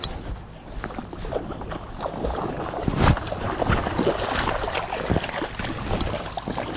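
Irregular splashing and slapping in shallow river water over the steady rush of the river, as a freshly landed coho salmon thrashes at the edge. The loudest splash comes about three seconds in.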